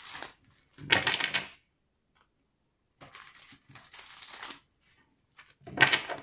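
A deck of tarot cards being shuffled by hand: bursts of rapid flicking card edges, about a second in, again for a second and a half from about three seconds in, and a short, loud burst near the end.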